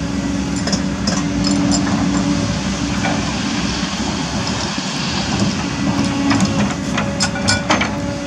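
Kobelco SK200 excavator's diesel engine running with a steady hum as the boom and bucket move, with a few sharp metallic clanks about a second in and a cluster more near the end.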